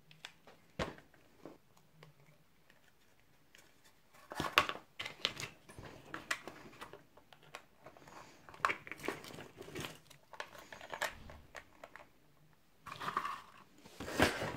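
Thin clear plastic and plastic seashells being handled and pressed together: irregular crinkling and crackling with small clicks, and a few sharper knocks about a second in and near the end.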